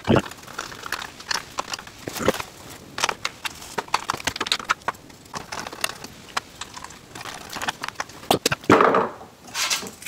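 Irregular small clicks and taps of a hand screwdriver and small screws being worked on a ceiling fan's metal motor housing, with a louder burst of handling noise near the end.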